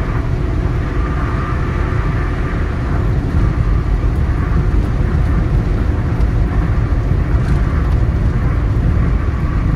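Steady road and engine noise of a car cruising on a highway, a continuous low rumble of tyres and motor.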